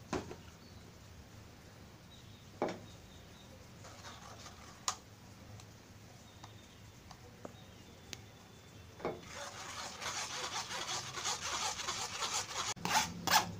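A spatula scraping and pressing thick blended tomato purée through a stainless-steel mesh sieve. A few light knocks come in the first five seconds. From about nine seconds in there is steady scraping that grows louder.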